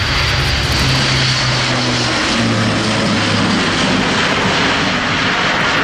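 The four Europrop TP400-D6 turboprop engines and eight-bladed propellers of an Airbus A400M Atlas run at full takeoff power as it lifts off and climbs into a steep banked turn. The drone is loud and steady, and its low propeller tone drops in pitch about two seconds in.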